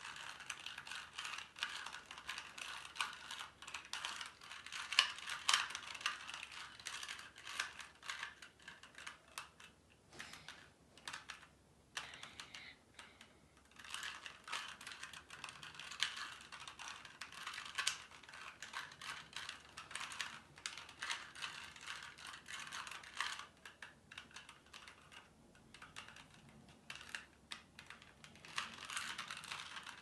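2x2 Rubik's cube being turned by hand: fast runs of plastic clicking and clacking as the layers are twisted, easing off for a few seconds about ten seconds in and again near the end.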